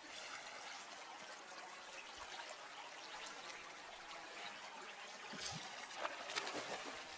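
Shallow river current running steadily, with a few sharp splashes about five and a half to six and a half seconds in as a Dolly Varden strikes at a surface gurgler fly.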